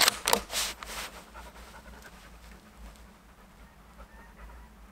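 Dog panting, three quick breaths in the first second, then falling away to quiet with a few faint chirps near the end.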